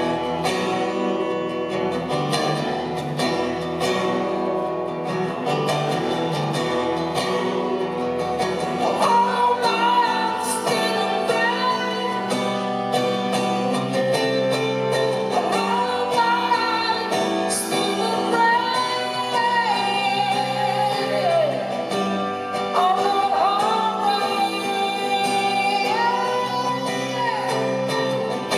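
Live solo acoustic rock performance: a man singing into a microphone over an acoustic guitar. Long high sung notes begin about nine seconds in.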